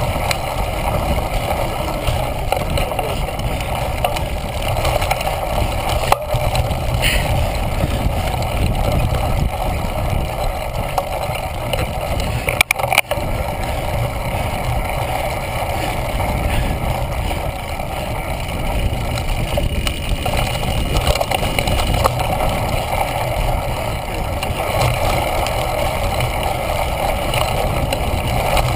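Steady wind rush and tyre rumble on a GoPro camera riding along on a cyclocross bike racing over dirt and grass. A couple of sharp knocks come about halfway through.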